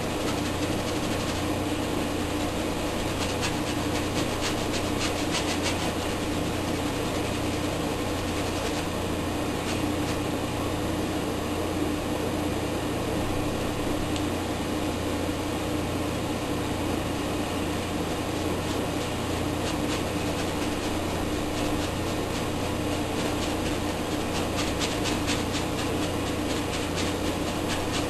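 Steady mechanical hum with a low drone. Over it, a few runs of faint scratchy strokes come and go: a brush working oil paint onto canvas.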